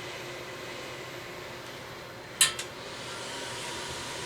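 A steady hiss, broken about two and a half seconds in by two sharp clicks in quick succession.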